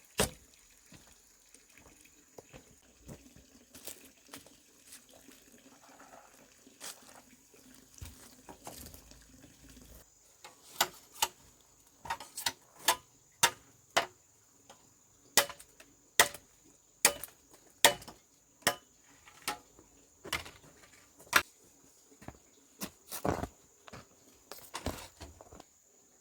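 A series of sharp, irregular knocks or taps, about one to two a second, starting about ten seconds in, over a steady high-pitched insect drone.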